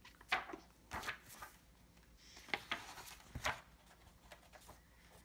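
Pages of a large picture book being handled and turned: a series of short paper rustles and flicks.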